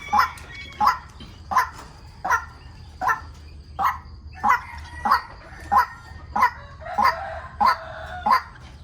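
White-breasted waterhen calls: a short, sharp note repeated evenly about every 0.7 s, with a second, lower call overlapping briefly near the end.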